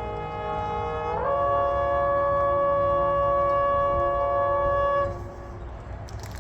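Marching band's brass and woodwinds holding a closing chord: the chord moves up about a second in, is sustained steadily for about four seconds, then is released.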